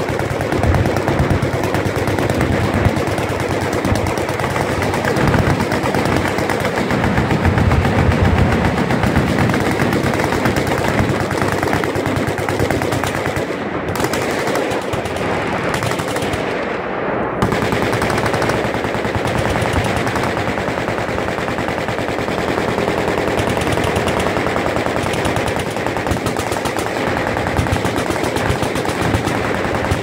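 Many machine guns firing at once in a continuous barrage, shots overlapping so thickly that there is no break between bursts.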